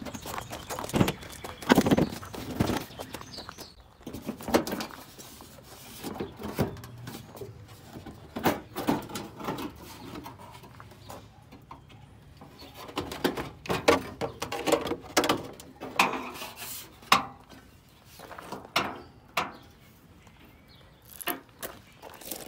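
Irregular knocks, clicks and rattles of metal and plastic truck body parts and tools being handled.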